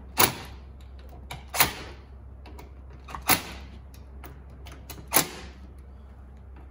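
Cordless impact driver run in four short bursts, about a second and a half apart, driving steel screws into a soft aluminium housing. A steady low hum runs underneath.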